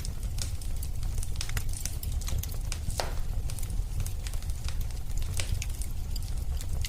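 Wood fire crackling in a fireplace: a steady low rumble of flames with frequent irregular sharp pops and snaps, one stronger pop about three seconds in.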